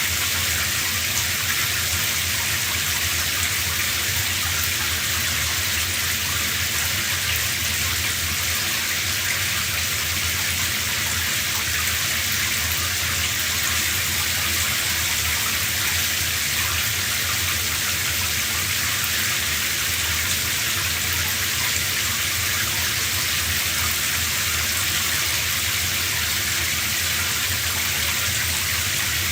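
Shower running: a steady spray of water hissing down without a break.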